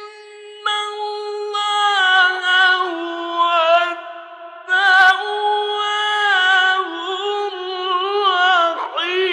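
A male Quran reciter chanting in the melodic mujawwad style: a high voice holding long, drawn-out notes with wavering ornamented runs. The voice dips briefly about four seconds in, then comes back strongly.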